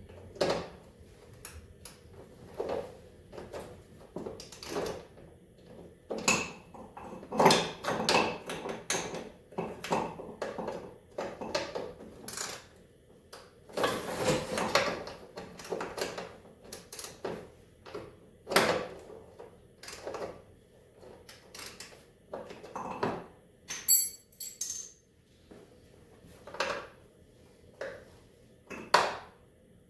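Hand wrenches clinking and scraping against the snowmobile's rusty engine bolts as they are worked loose, in irregular short clanks with pauses, and a brief high squeak partway through. The nuts are rusted and have to be fought off thread by thread.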